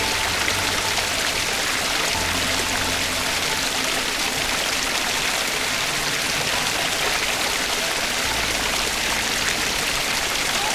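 A steady, even rushing noise with no breaks, like running water.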